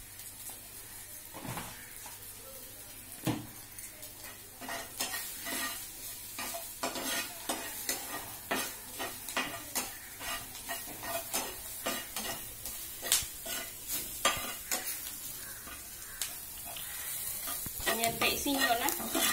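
Chopped garlic and green chillies sizzling in hot oil in a nonstick frying pan, with a spatula stirring and scraping against the pan in quick, irregular strokes. The stirring strokes become frequent about four seconds in.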